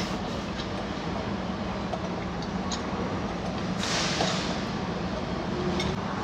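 A few light metallic clicks of a wrench working on a truck's propshaft coupling bolts, over a steady low hum, with a brief rush of noise about four seconds in.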